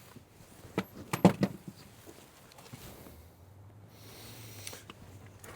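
A handful of sharp metallic clinks from hand tools being handled, about a second in, then a faint steady low hum.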